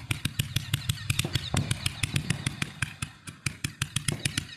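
Fireworks crackling: a dense run of rapid, sharp pops over a low rumble, thinning out and fading toward the end.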